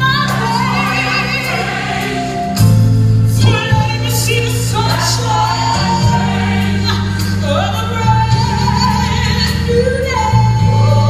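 Gospel song: a sung melody over a backing track with sustained bass notes, the voices holding long, wavering notes.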